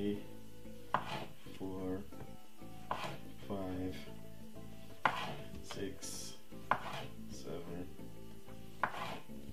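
Kitchen knife cutting cherry tomatoes on a chopping board: a sharp knock of the blade hitting the board about every two seconds, five times.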